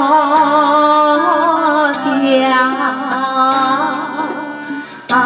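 A voice singing a slow, long-held melody with wide vibrato over a steady instrumental backing. The sound breaks off briefly just before the end and then resumes.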